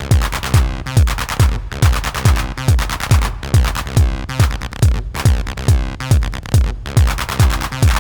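Acid house jam on a Behringer RD-9 drum machine and a Behringer TD-3 bass synthesizer: a steady four-on-the-floor kick drum, just under two beats a second, under a repeating synth bass line.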